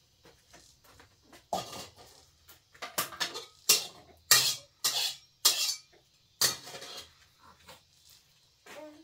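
Metal pots and utensils clattering and scraping: a run of about eight short, sharp strokes in the middle of the stretch, then a few faint knocks.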